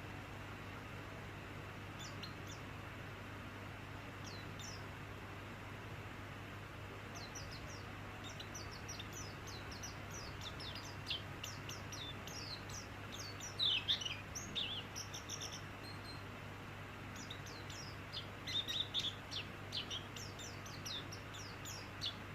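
A white-eye (pleci) singing: quick, high, chirping notes in scattered runs, busiest in the middle and toward the end, over a steady low hum and hiss.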